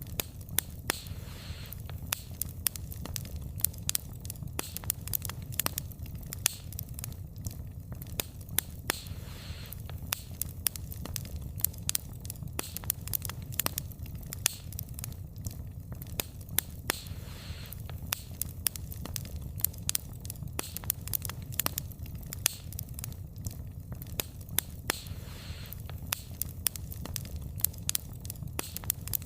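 Wood fire burning, with frequent irregular sharp pops and crackles of the burning logs over a steady low rumble of the flames.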